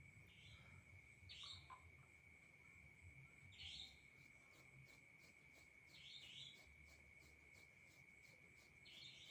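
Faint steady trill of crickets or other night insects, with four brief scratchy sounds spaced about two and a half seconds apart.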